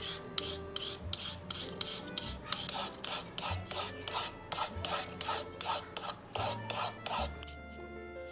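Food being grated by hand on a grater, in even rasping strokes about three a second that stop near the end.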